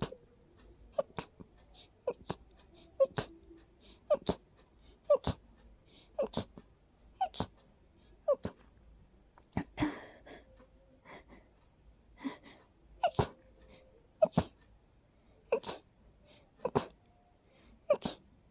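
A person sneezing in a rapid allergic fit, set off by smelling daisies: a long series of short, sharp sneezes about one a second, with a longer, breathier sneeze about ten seconds in.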